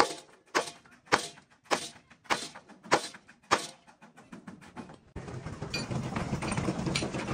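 Steady, even hammer blows on steel, about one every 0.6 s, seven strikes. About five seconds in, a continuous rough noise with rapid crackling starts.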